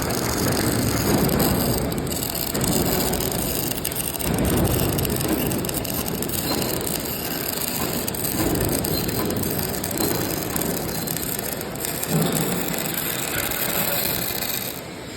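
Electric arc welding sizzling and crackling steadily, with a rumble swelling and fading every second or two.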